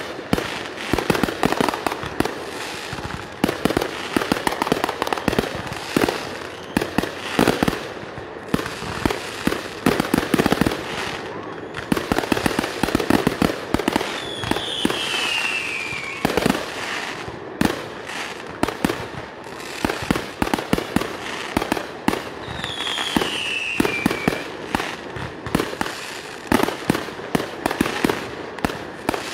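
Fireworks display: a dense, continuous run of sharp bangs and crackling from aerial shells and ground fountains. Two long falling whistles cut through, one about halfway and another later on.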